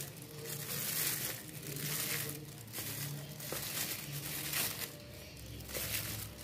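Thin plastic disposable glove crinkling in repeated short bursts as a gloved hand picks up and sets down pieces of steamed banana cake.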